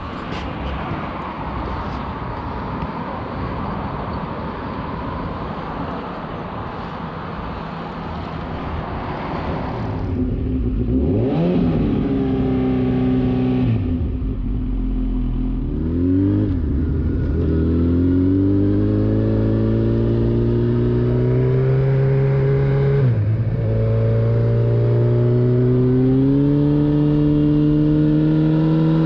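Honda motorcycle engine, first a steady noisy rumble, then pulling away and accelerating through the gears, the pitch climbing and dropping back at each of about three upshifts. Near the end it settles to a steady cruising note.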